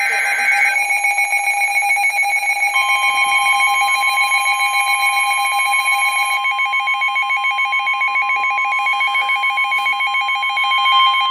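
Weather-radio alert: a rapidly pulsing electronic alarm beep, joined about three seconds in by a steady, unbroken 1050 Hz NOAA Weather Radio warning alarm tone, the signal that a warning broadcast (here a tornado warning) is about to follow.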